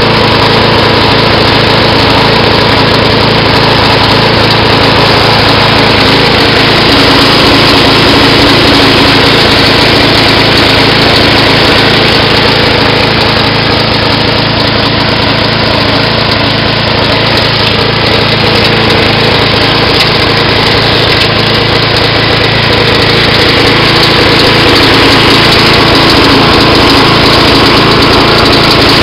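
Vintage Toro Timemaster push lawnmower's Briggs & Stratton engine running steadily and loudly, with an even, unchanging engine note.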